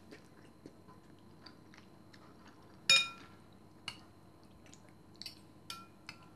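Metal spoon and fork clinking against a ceramic soup bowl during eating. One sharp, briefly ringing clink comes about three seconds in, followed by several lighter clinks and taps near the end.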